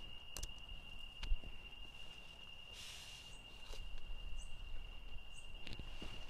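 Handling of a dome tent: nylon fabric rustling, with a few sharp light clicks. Throughout there is a steady high insect trill, and three short faint high chirps come in the second half.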